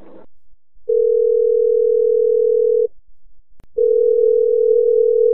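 Telephone ringback tone from an outgoing call: a steady, low tone sounds for about two seconds, stops for about a second, then sounds again for about two seconds.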